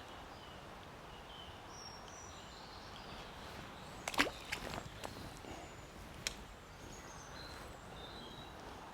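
Faint birdsong over a steady outdoor background hiss, broken by a short cluster of clicks and knocks about four seconds in and one sharp click about two seconds later.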